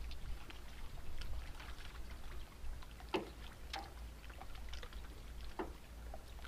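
Water lapping and slapping against a boat's hull in short irregular splashes, the clearest about three seconds in and again late on, over a low steady rumble.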